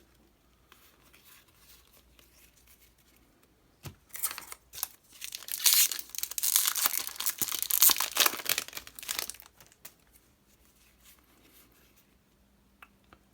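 Yu-Gi-Oh! foil booster pack wrapper being torn open and crinkled by hand: a few seconds of tearing and crinkling starting about four seconds in, with light handling rustle around it.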